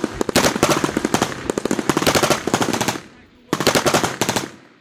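F89 Minimi (M249) 5.56 mm belt-fed light machine gun firing fully automatic in two long bursts, the first about two and a half seconds long and the second about a second long.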